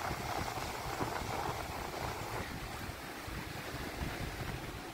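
Wind gusting and rumbling on the microphone, over a steady wash of open-air noise by the sea.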